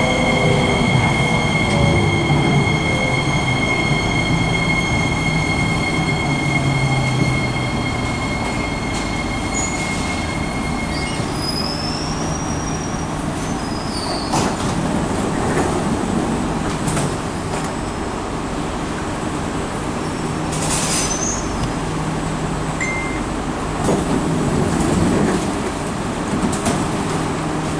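Two Singapore MRT C151-series trains, a C151C with one-step braking and a C151A, braking into a station and drawing to a stop. The electric drive whines in several steady high tones and a lower tone that falls in pitch, and the tones cut out about eleven seconds in. Under the car rumble there are then a few short sharp knocks, the loudest near the end.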